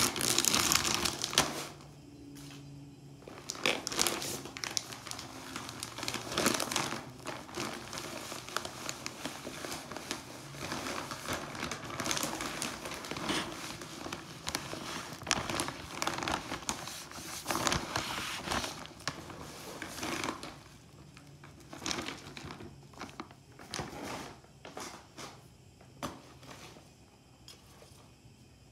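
Plastic potting-mix bag crinkling and rustling as it is handled. The crackling is irregular and dense, thinning out after about twenty seconds.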